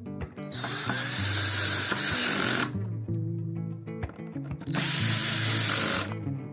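A small handheld power tool, drill-like, runs twice for about two seconds each time, with background music playing underneath.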